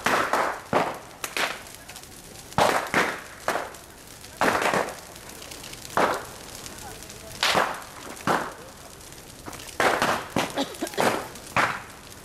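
Large bonfire of stacked wood burning, with loud, sharp cracks and pops coming irregularly, about one or two a second, over the steady rush of the flames.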